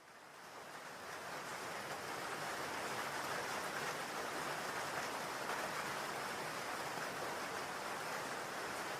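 Steady rain falling, an even hiss that fades in over the first couple of seconds and then holds.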